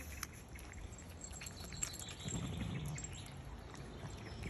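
Puppy eating raw mince from a stainless steel bowl: faint, scattered small wet clicks and smacks of chewing and licking.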